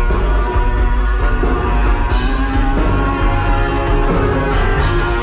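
Live rock band playing, heard from among the audience.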